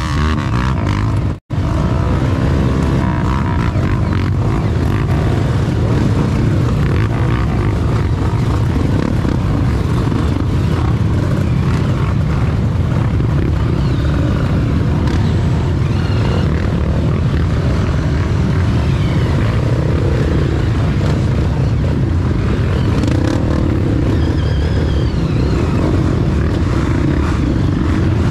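Many trail motorcycles running together, a dense, steady engine rumble. The sound drops out for an instant about a second and a half in.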